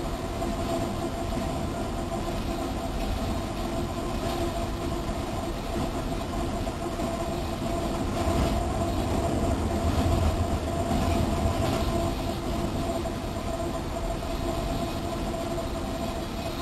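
Freight train rolling on the rails at about 30 mph with the locomotive throttle at idle: a steady rumble with a constant hum and a few faint wheel clicks, swelling slightly about two-thirds of the way through.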